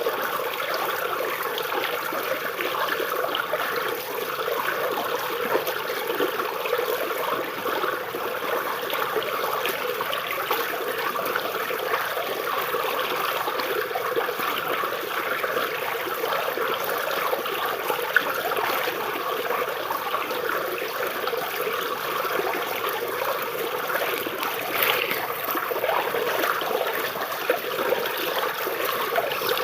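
Small stream trickling and babbling steadily as water runs under tree roots.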